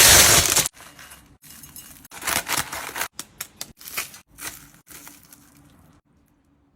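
A loud hissing burst of noise for the first moment, then a run of irregular rustles, crinkles and clicks of things being handled, dying away about six seconds in.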